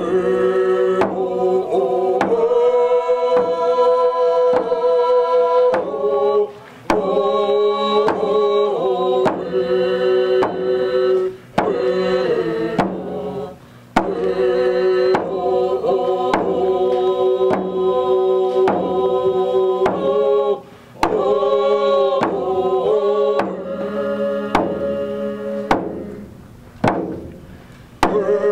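A group of voices sings a prayer song in unison over a steady beat on hand-held frame drums, with short breaks between phrases.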